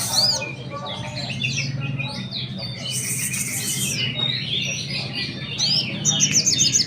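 Caged sogon songbird singing a varied, continuous run of chirps, whistled up-and-down glides and short trills, with other birds calling alongside. Near the end it breaks into a fast rattling series of high repeated notes. A steady low hum runs underneath.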